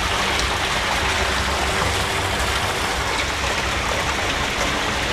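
Pumped water pouring steadily from a large PVC discharge pipe and splashing into a tank of water, with an even rushing and splashing. The flow comes from a five-horsepower submerged pump running on test.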